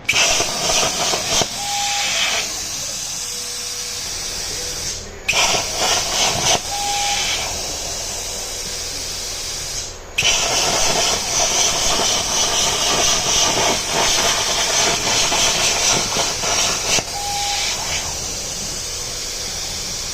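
Hypertherm Powermax 85 plasma cutter on a CNC table cutting steel: a loud steady hiss of the arc and air, cutting out briefly twice and re-firing as the torch moves to a new pierce, louder for a second or two after each start. A short beep sounds three times.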